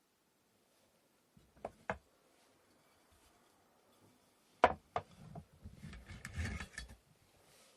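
Wooden sticks knocking together and on a hard surface: two light clicks, then a sharper knock about halfway through, followed by about two seconds of handling and rubbing.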